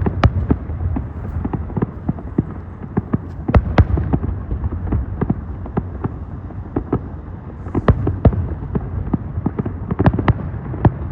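Many fireworks going off, sharp bangs at irregular intervals, some close together in clusters, over a continuous low rumble.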